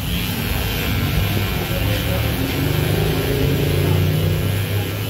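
Cordless electric beard trimmer running steadily as it trims a beard, a motor hum with a high hiss.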